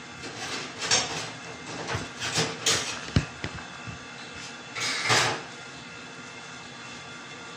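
Plastic disposable gloves rustling and crinkling as hands rub seasoning into a whole chicken, in several louder bursts, with a single sharp knock about three seconds in, over a steady background hum.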